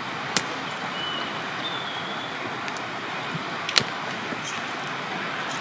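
Wood campfire crackling over a steady hiss, with two sharp pops: one near the start and one a little before the end.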